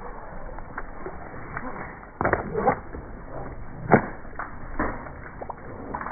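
A gaffed red snapper and the gaff knocking against the boat's side and deck as the fish is hauled aboard: a series of sharp thuds and knocks, the loudest about four seconds in.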